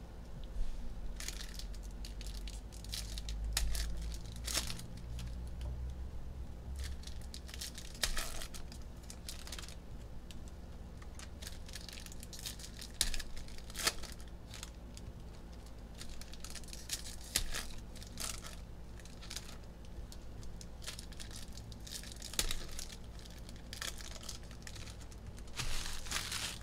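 Foil trading-card pack wrappers being torn open and crumpled, with stacks of cards handled and squared on the table, in scattered short crackles over a low steady hum.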